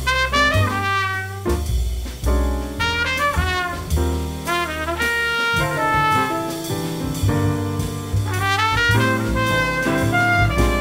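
Small jazz group playing: an open trumpet plays quick runs that rise and fall, over a plucked upright bass, piano and drums.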